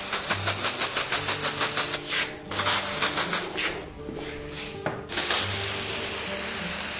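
Contact-adhesive spray gun, fed by hose from a pressurised glue canister, hissing as it sprays glue onto a panel. The hiss pulses quickly at first, cuts out briefly about two seconds in and again for over a second, then runs steadily near the end.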